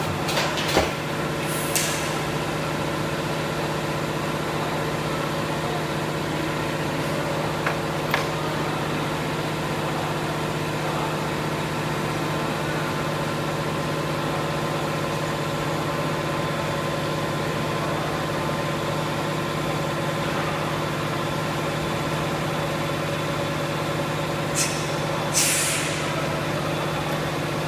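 TIG welding a stainless steel pipe nipple onto a tank: the welder and its arc give a steady electrical hum, broken by a few short hisses near the start and twice near the end.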